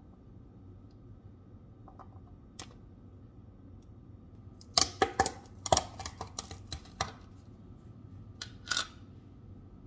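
Metal fork scraping and tapping in a clear plastic tub of bean salad, dishing it onto a plate: a quick run of sharp clicks and knocks about five to seven seconds in, then two more knocks near the end.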